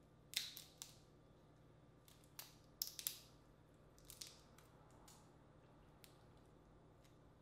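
Boiled crawfish shells cracking and crackling as they are peeled apart by hand: several short, sharp cracks that come in small clusters.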